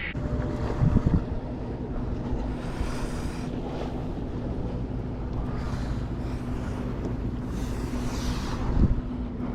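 Wind buffeting the microphone on an open fishing boat, with water noise and a steady low hum. There are two short knocks, about a second in and near the end.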